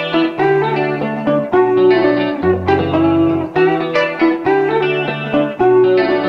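Instrumental background music with a melody over a bass line that moves to a new note about every second.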